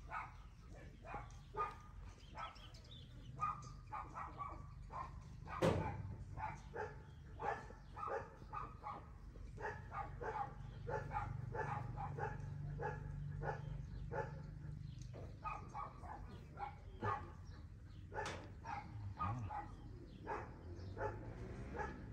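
Short animal calls repeated a few times a second, with a sharp knock about six seconds in and another about eighteen seconds in.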